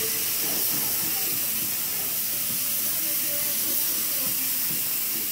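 DeVilbiss Tekna paint spray gun hissing steadily as it sprays single-stage white paint.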